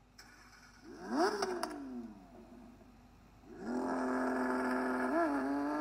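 Car engine revving: a quick rev up and back down about a second in, then held at steady revs from about three and a half seconds in, with a small blip near the end.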